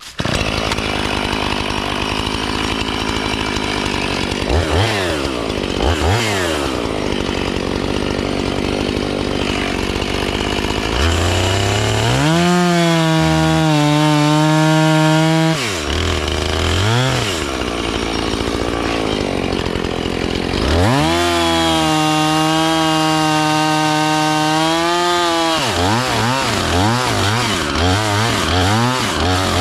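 Chainsaw idling, revved briefly twice, then held at full throttle for two runs of about four seconds each while cutting the top out of a dead tree, and ending with a quick string of revs.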